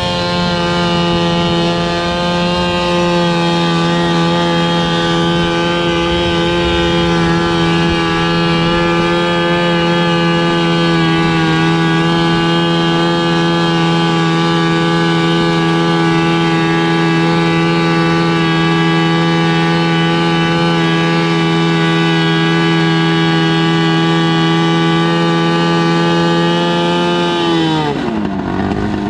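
Modified garden tractor engine running at high, steady revs under load while pulling a weight sled, with a slight dip about eleven seconds in. Near the end the revs fall away sharply.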